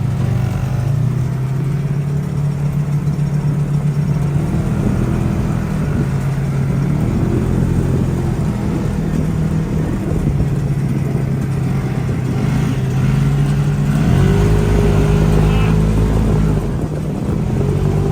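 Engine of an off-road side-by-side (RZR) running under load, its pitch rising and falling with the throttle and climbing higher about fourteen seconds in.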